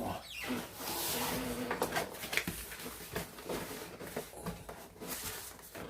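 Cardboard and packing material scraping and rustling, with scattered knocks, as a television is worked out of a tight-fitting box.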